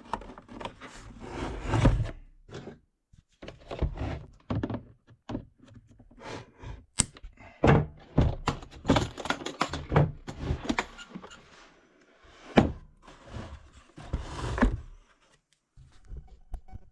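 A hard plastic tool case being handled: irregular thunks, knocks and rubbing as it is opened and its contents are moved about.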